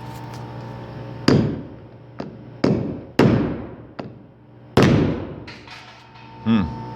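Hammer blows driving a splined bolt into a drilled hole in a metal panel: about five hard strikes and several lighter taps at uneven intervals, each ringing briefly.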